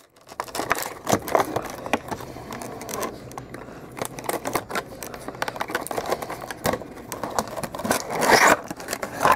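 Clear plastic wrapping crinkling and rustling in irregular crackles as it is pulled off a handheld toy remote control, with a louder rustle near the end.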